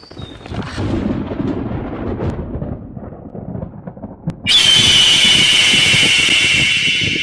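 Horror sound effects: a low, thunder-like rumble, then about four and a half seconds in a sudden, loud, high-pitched ringing sting that holds and slowly fades.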